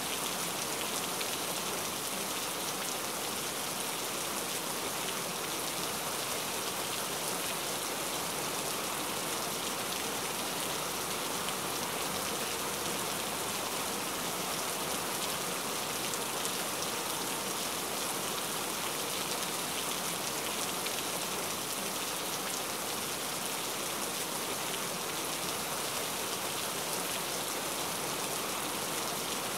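Recorded rain ambience: steady rain, an even hiss that holds without breaks or changes.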